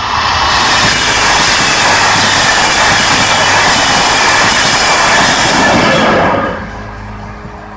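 SNCB passenger train, coaches with class 21 electric locomotive 2157, passing close at speed: a loud steady rush of wheel and running noise that stops abruptly about six and a half seconds in as the train clears the crossing.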